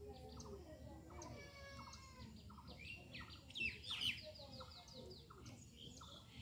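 Small birds chirping and twittering, several calls overlapping, including quick trills of repeated notes, with a louder flurry of chirps about three to four seconds in.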